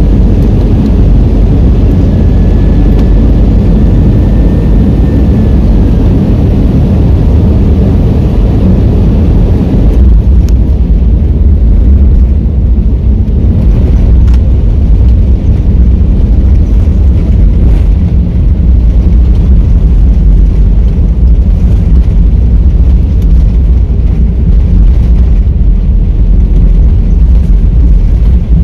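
Airliner's jet engines and rolling rumble heard from inside the cabin as the plane moves along the runway. The noise is loud and steady, and about ten seconds in it turns into a heavier, deeper rumble.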